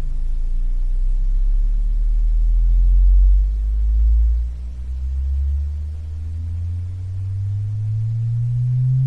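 Tang Band W3-1876S 3-inch subwoofer in a 3D-printed PLA folded-waveguide enclosure playing a slow sine sweep, a single low tone rising steadily in pitch from deep bass into the upper bass, with fainter overtones above it. It is loudest in the lowest notes about three to four seconds in, then drops somewhat as the pitch climbs.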